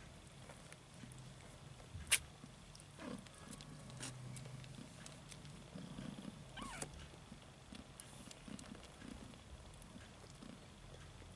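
Mother cat purring low and steadily while her kittens nurse. A sharp click comes about two seconds in and is the loudest sound, and two brief sliding squeaks follow.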